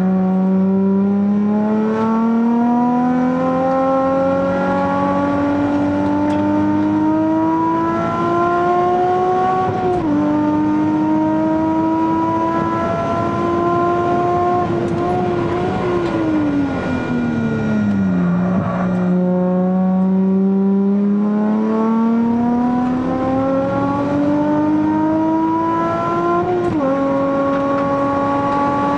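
Nissan 350Z's V6 engine heard from inside the cabin under hard driving: the revs climb steadily with an upshift about a third of the way in, then fall away off the throttle just past halfway, before climbing again to another upshift near the end.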